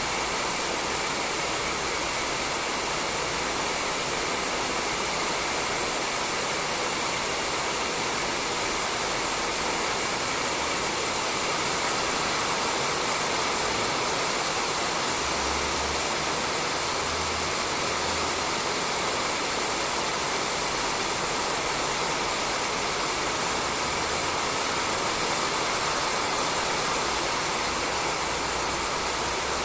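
Steady rain falling on a roof: an even hiss, with no single drops standing out.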